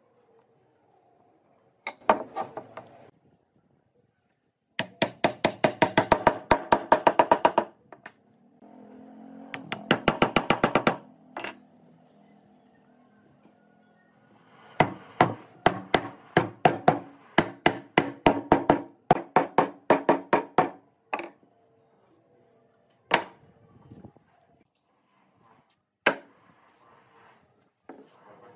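Fast runs of hammer blows on wood, driving glued pine tenons home into their mortises. There are a quick burst, a short run, then a longer series of steady strikes, followed by a couple of single knocks near the end.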